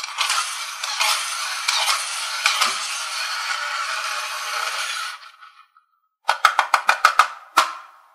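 Small plastic wheeled toy helicopter rattling as it is handled: a long, even rattling whir that fades out, then a quick run of sharp clicks.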